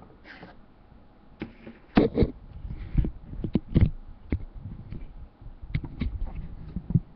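Handling noise: an irregular run of knocks, taps and scrapes, loudest about two to four seconds in.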